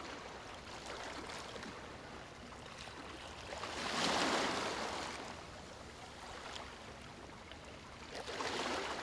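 Wind rustling through tree leaves: a steady hiss that swells in a gust about four seconds in and again near the end.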